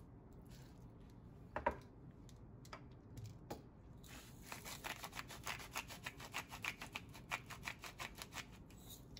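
A few single clicks, then from about four seconds in a rapid, even run of small clicks, about five a second.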